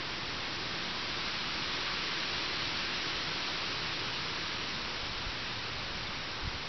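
Steady, even hiss with no calls from the turkeys; a faint low thump near the end.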